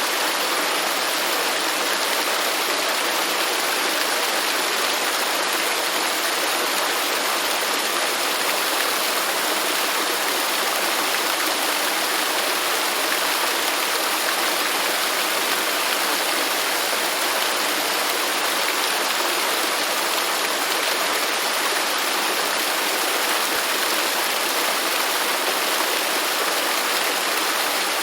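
Waterfall: water falling and splashing in a steady, unbroken rush with no single splashes standing out.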